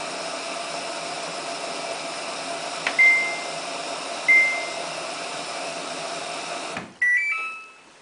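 Samsung WF8804RPA front-loading washing machine in service test mode: a steady hum from the machine, with two single button beeps about three and four seconds in. Near the end a click, the hum cuts off, and a short stepped chime, mostly rising, plays as the machine is switched off.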